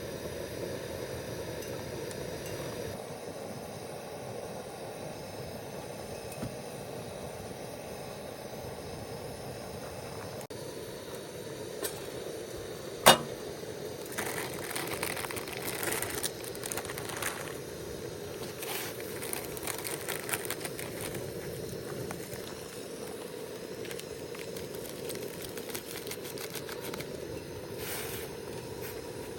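Steady rain hiss, with one sharp click about halfway through followed by a spell of rustling and handling noises.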